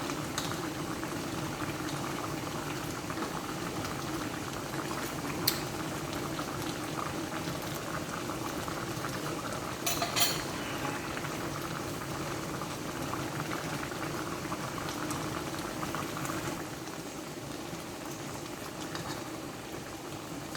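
Pot of chicken adobo bubbling steadily on a simmer as its sauce reduces and thickens, with two sharp clicks about five and ten seconds in; the bubbling eases slightly near the end.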